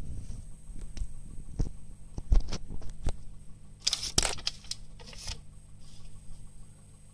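Phone camera handling noise: scattered knocks against the microphone, the sharpest a little over two seconds in, and a brief rustle about four seconds in, over a steady low hum.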